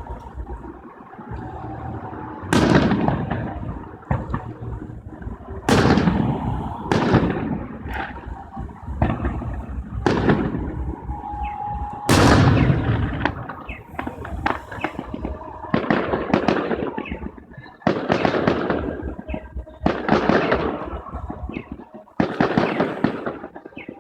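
Fireworks display: a rapid string of aerial shell bursts, a sharp bang about every second or two, each trailing off in echo, with crackling between them.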